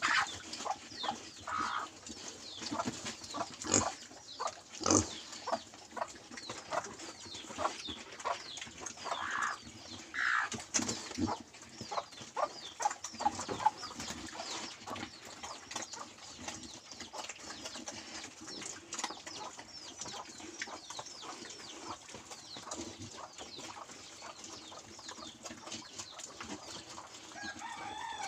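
Pigs feeding at a trough: irregular chomping, snuffling and knocking at the feed, busiest in the first half and quieter later.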